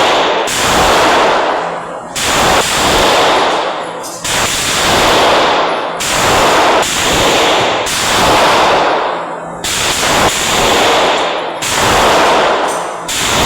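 Gunshots fired one at a time at a steady pace, about eight shots roughly two seconds apart. Each sharp crack is followed by a long echoing decay.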